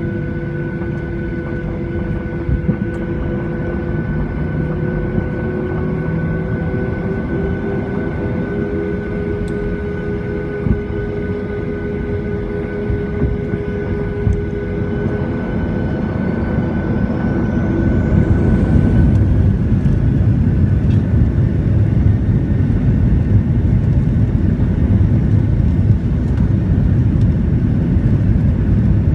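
Boeing 737 turbofan engines heard from the cabin over the wing: steady whining tones at low power, then a thin rising whine a little past halfway as the engines spool up, and the engine noise swells into a louder, steady rush of takeoff thrust.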